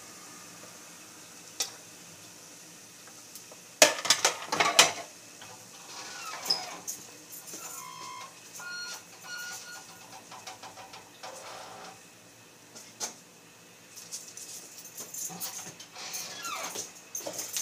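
A metal ladle clattering against a frying pan and dry macaroni rattling, in a loud burst of knocks about four seconds in, then scattered lighter clicks and taps. A few short, high chirps come through around the middle and near the end.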